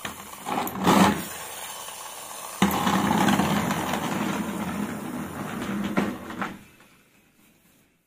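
Toy bus pushed along a slatted board: a brief scrape about a second in, then a rolling whir that starts suddenly at about two and a half seconds and fades away near the end as the bus coasts to a stop.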